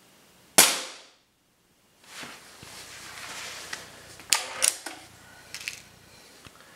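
A single shot from a Stoeger X20 break-barrel spring-piston air rifle, the unsuppressed version: a sharp, loud crack about half a second in with a short ringing tail. Then rustling and a few light clicks as the rifle is handled.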